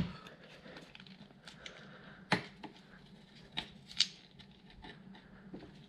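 A few light, sharp clicks and handling noises from a plastic gear-oil jug, its torn seal and a plastic filler spout being handled. The clearest click comes about two seconds in, with two more between three and a half and four seconds in.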